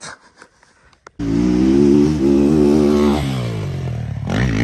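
Motocross dirt bike engine running hard on the track. It cuts in suddenly about a second in, holds fairly steady, drops in pitch around three seconds in, then revs up again near the end.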